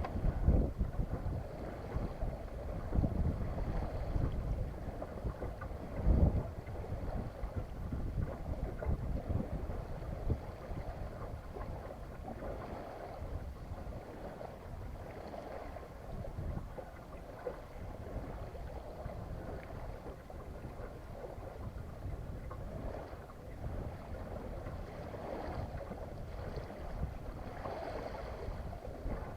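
Wind buffeting the microphone aboard a small sailboat, a low rumbling noise with gusts that are loudest about half a second and again six seconds in, over a faint wash of water.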